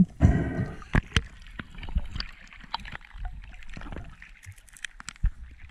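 Underwater sound picked up by a diver's action camera while a speared wahoo is handled: water gurgling and sloshing, with a burst of gurgling just after the start and many scattered sharp clicks and knocks.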